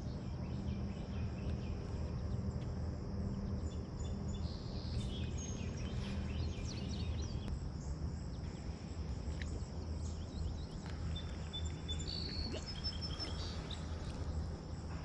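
Outdoor ambience by a pond: a steady high insect drone over a low steady hum, with a few short bird chirps about five seconds in and again about twelve seconds in.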